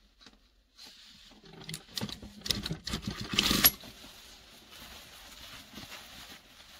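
Industrial sewing machine running in a short burst, stitching through folded fabric pleats, loudest just before it stops suddenly a little past halfway; a faint steady noise follows.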